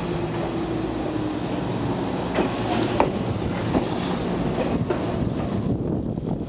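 Kumamoto Electric Railway 6000 series electric train (ex-Toei Mita Line) running slowly past as it arrives at the station. There is a steady rumble, and the wheels clack over the rail joints several times. A faint low whine falls in pitch over the first two seconds.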